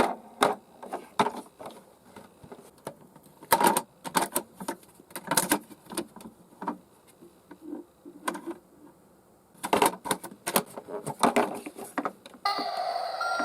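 Light, irregular clicks and knocks with quiet gaps between them, from a small toy ambulance minicar being handled.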